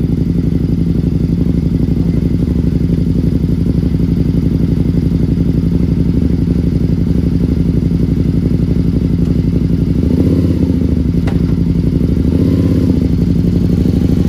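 Can-Am Spyder three-wheeled motorcycle's engine idling steadily. About ten seconds in the engine note changes a little, and there is a single sharp click shortly after.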